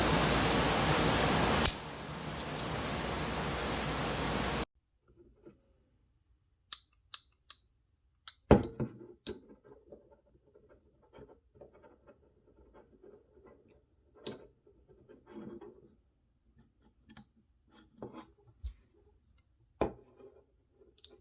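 A steady hiss that drops after a click and cuts off abruptly a few seconds in, followed by scattered sharp metallic clicks and light handling noises from a folding multitool pocket knife being worked open and shut, the loudest click about halfway through.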